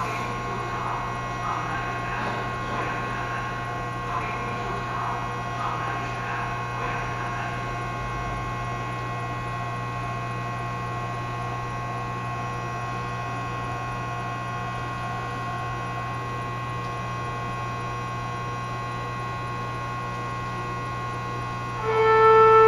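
Keio 8000 series electric train standing before departure, its onboard electrical equipment giving a steady hum with a high whine of several fixed tones. Near the end a loud, steady, multi-pitched tone starts up.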